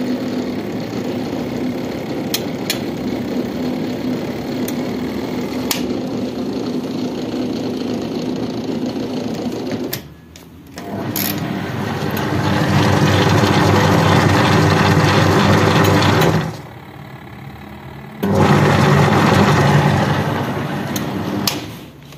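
Volta washing machine on a test run with its new motor: for about ten seconds the drain pump hums steadily while soapy water pours out of the drain hose into a bucket. Then the wash motor runs louder in two spells of about five and three seconds with a short stop between, the start-stop pattern of the wash cycle.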